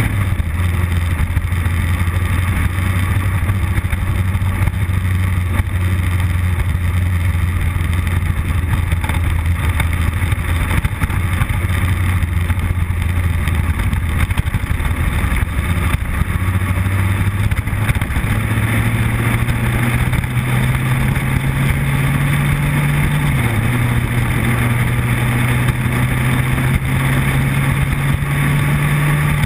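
Motorcycle engine running steadily under way, with wind rushing over the onboard microphone. About eighteen seconds in the engine note rises as the bike speeds up, then steps down slightly a few seconds later.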